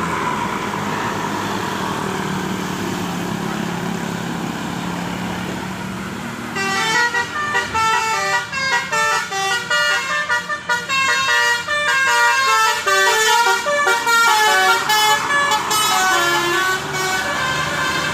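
Vehicle engine and road noise, then from about six seconds in a bus's Basuri musical horn, driven by a DAV tune module, plays a fast melody of short pitched notes: the Indonesian 'telolet' bus horn.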